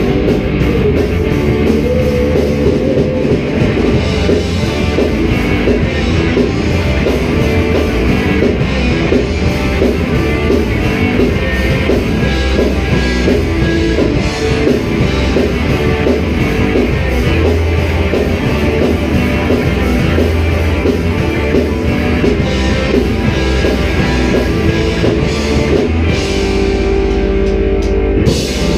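A rock band playing live on electric guitars and a drum kit, loud and steady. Near the end the song closes on a held, ringing chord.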